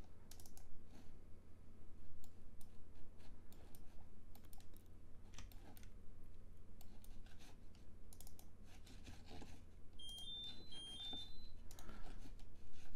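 Scattered computer mouse clicks and keyboard taps over a steady low hum. About ten seconds in there is a brief run of short, high tones.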